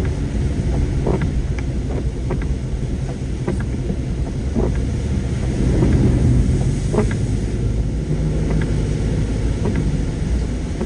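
A car driving on the road: a steady low rumble of road and engine noise, with scattered short taps and clicks over it.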